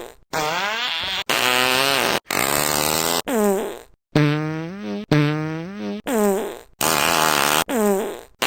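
A rapid series of comic fart sound effects, about nine in a row, each roughly a second long and cut off abruptly. Each is a buzzy, pitched raspberry whose pitch falls or wobbles.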